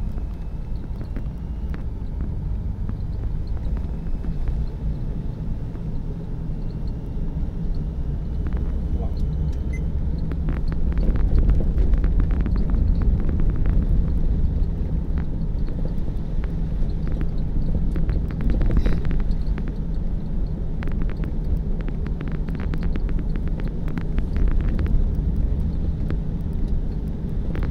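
Car cabin noise while driving on a wet road: a steady low rumble of engine and tyres. From about ten seconds in, scattered sharp clicks and rattles sound over the rumble.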